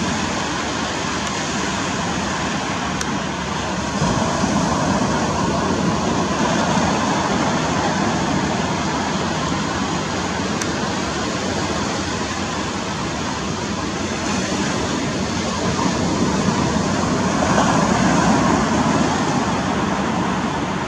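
Steady rushing noise of wind on the microphone and surf at the shore, swelling a little louder about four seconds in and again near the end.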